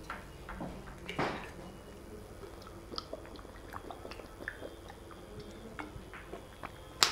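A man drinking from a plastic bottle: faint gulps, mouth sounds and small clicks of the bottle, with a sharp click near the end.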